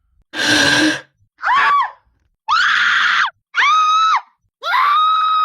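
A series of high-pitched screams used as a horror sound effect. One rough, noisy scream comes first, then four shrill shrieks that each rise and hold a steady pitch. The last shriek is the longest.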